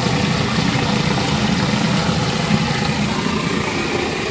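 Fish deep-frying in coconut oil in an iron kadai: a steady sizzle over a constant low rumble.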